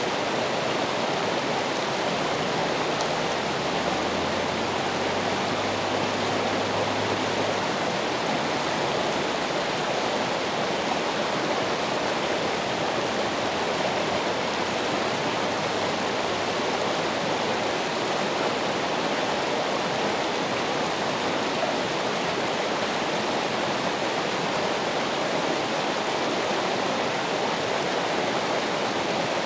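Running water, a stream or small cascade, rushing steadily and evenly.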